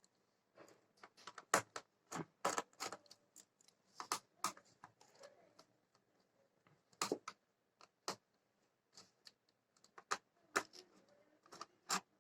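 Irregular small clicks and ticks of a magnetic screwdriver unscrewing the base screws of a Dell 3584 laptop, coming in short scattered clusters.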